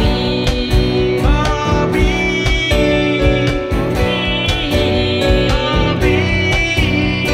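Live band playing country rock: strummed acoustic guitar over a steady beat, with a man singing the melody.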